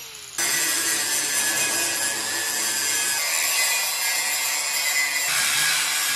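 DeWalt angle grinder grinding the steel truck frame, throwing sparks: a loud, steady, harsh grinding noise that starts abruptly about half a second in, its tone shifting about five seconds in.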